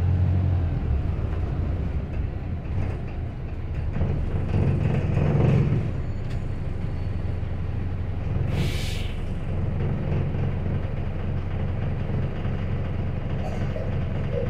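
Inside a single-deck bus: the diesel engine and running gear drone steadily and low, swelling briefly a few seconds in. A little past halfway there is one short hiss of compressed air from the bus's air system.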